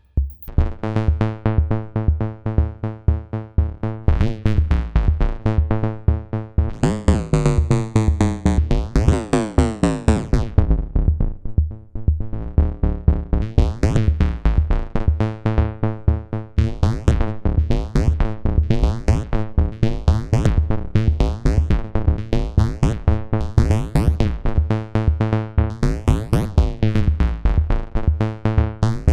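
Modular synthesizer patch played through the ST Modular Boba Fat module: pitched electronic tones pulsing in a quick, even rhythm with drum-machine-like hits. About seven seconds in, a bright hissy layer comes in for a few seconds while the tones sweep up and down.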